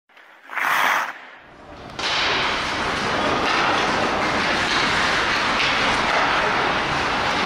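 A brief burst of sound near the start, then from about two seconds in the steady, echoing noise of a youth ice hockey game in an indoor rink: skates scraping the ice, with occasional knocks of sticks and puck.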